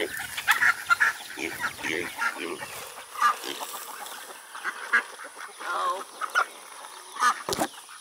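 Ducks quacking over and over, mixed with calls from other farm poultry, with one sharp click near the end.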